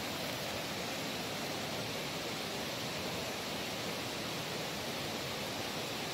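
A steady, even rushing hiss with no breaks.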